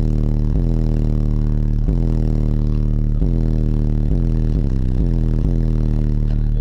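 Car audio subwoofer system playing a deep sustained bass tone at very high level inside the vehicle's cabin, its pitch shifting in small steps every second or so.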